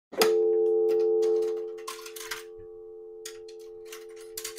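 Payphone handset lifted off its hook with a click, then the steady two-note North American dial tone from the earpiece. The tone is loud for about the first second and a half, then drops well down and keeps going under scattered clicks and rattles of handling. On this dial-tone-first payphone the tone comes before any coin is deposited.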